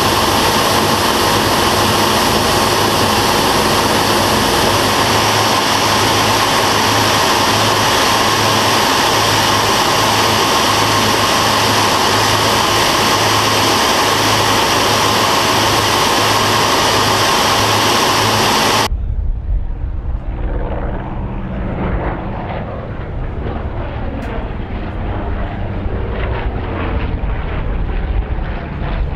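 Twin Pratt & Whitney R-2800 radial engines of a Grumman F7F Tigercat heard from inside the cockpit in flight: a loud, steady drone with a slow pulsing beat. About two-thirds of the way through it cuts suddenly to the deeper, duller rumble of a propeller aircraft flying at a distance, its pitch slowly shifting.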